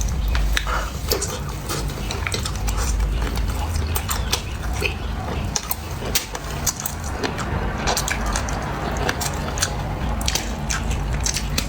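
Close-miked eating sounds: chewing and biting, with many sharp little clicks and wet mouth noises, over a steady low hum.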